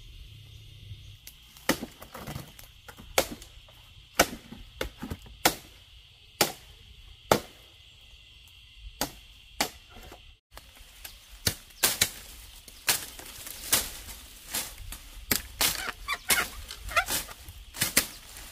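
Machete chopping through bamboo stems and undergrowth: a run of sharp strikes, about one a second at first, coming quicker and closer together in the second half.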